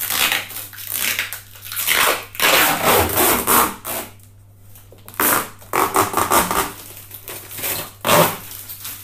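Plastic protective wrap crinkling and rustling in several loud bursts as it is pulled off a scooter footboard.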